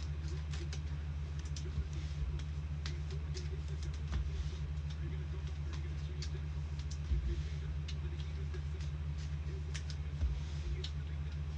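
Trading cards being handled and sorted, giving irregular light clicks and soft slides as cards are flicked and set down, over a steady low electrical hum.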